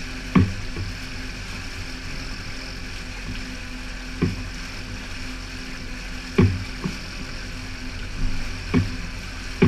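Outboard motor running steadily, with about half a dozen sharp knocks at irregular intervals.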